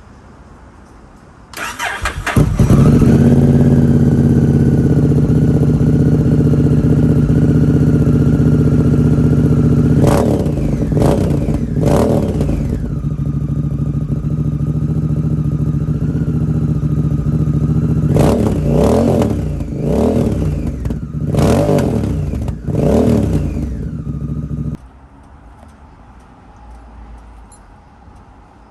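Honda Rebel 1100's parallel-twin engine, breathing through a cheap Chinese-made aftermarket muffler, starts about a second and a half in and settles into a steady idle. It is blipped three times around ten to twelve seconds in, idles again, then takes a run of quick revs before being shut off a few seconds before the end.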